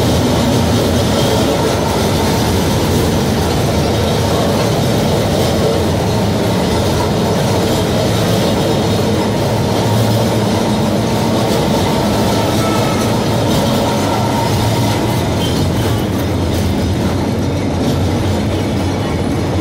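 Kolkata tram car running along its rails, heard from inside the car: a steady, loud rolling noise of wheels and car body.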